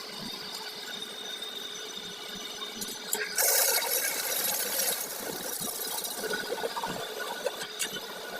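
Tool work on a clutch plate: scattered small clicks and rattles, with a loud hiss about three seconds in that lasts about a second and a half.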